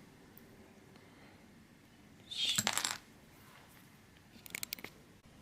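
Small parts being handled on a workbench: a short scrape or rustle about two and a half seconds in, then a quick run of light clicks and clinks near the end.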